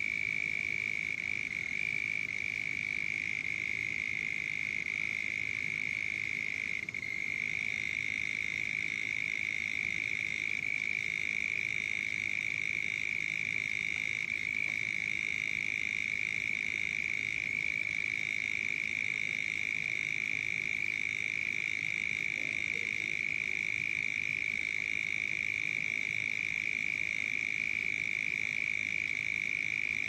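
A chorus of frogs calling, merged into one steady, unbroken high-pitched trill, over a faint low rumble.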